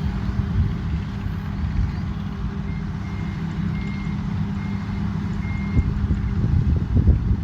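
Combine harvester's diesel engine running with a steady low rumble. Partway through, a string of about six short high beeps sounds, like a reversing alarm.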